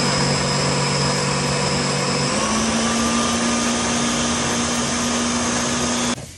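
Countertop blender running steadily as it purées sofrito of green peppers and herbs. About two seconds in, the motor's pitch steps up. It cuts off suddenly just before the end.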